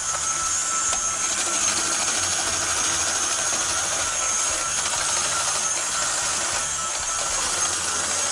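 KitchenAid Artisan stand mixer's motor running the slicer/shredder attachment while celery is pushed through the rotating drum and cut. The motor gives a steady whine carrying two steady tones, one mid and one high, over the noise of the cutting.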